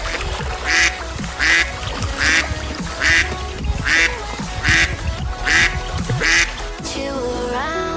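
Duck quacking about eight times in a steady, even rhythm, over background music.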